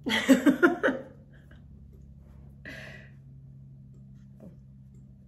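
A woman's short vocal sound in several quick pulses during the first second, then quiet room tone with a steady low hum and one faint brief noise near three seconds.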